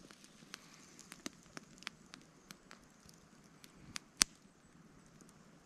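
Small wood fire of twigs and sticks crackling, with scattered sharp pops at irregular intervals and one louder snap about four seconds in.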